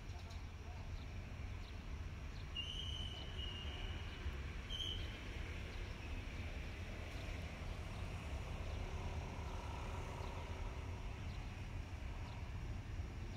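Faint open-air railway platform ambience with a steady low rumble. Two high whistled calls are heard, a longer one about three seconds in and a short one about five seconds in.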